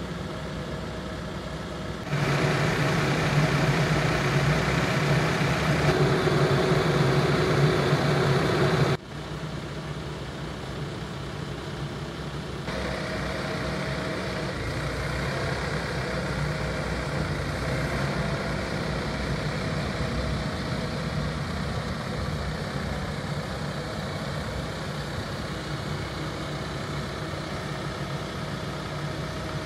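Case backhoe loader's diesel engine running steadily, with a much louder, higher-revving stretch from about two to nine seconds in, when the engine is under load working the loader arm.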